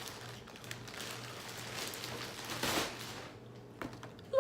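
Rustling of shoe packaging being handled and opened, swelling around the middle, with a couple of light clicks.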